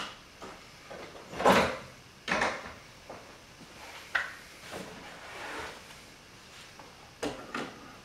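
Vintage 1/24 slot car with a padlock-type motor stuttering on the track: several short, irregular bursts of motor whir and rattle as its stiff steel pickup braid makes and loses contact with the rails.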